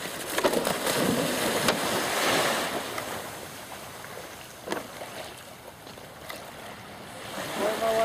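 Sea surf washing in, a broad rush of water noise that swells over the first few seconds and then eases, with a sharp knock about halfway through.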